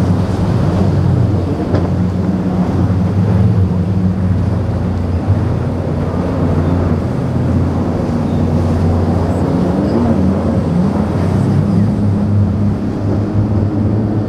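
A single outboard motor on a center-console fishing boat runs under power through rough inlet chop. Its pitch rises and falls as the hull rides over the waves.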